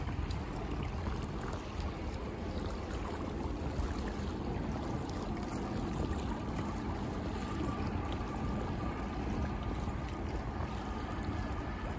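Steady low rumble of the self-unloading lake freighter Thunder Bay passing close by, mixed with wind on the microphone.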